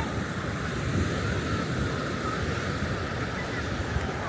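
Beach ambience: the steady wash of surf with wind buffeting the microphone, heavy and uneven in the low end.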